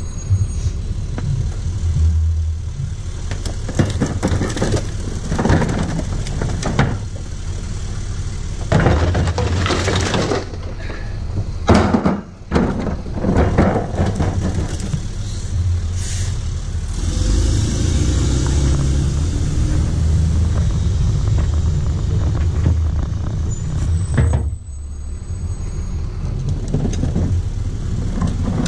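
Rear-loader garbage truck engine running with a steady low rumble, with clattering and knocks of bottles, cans and paper being tossed into the steel hopper, mostly in the first half.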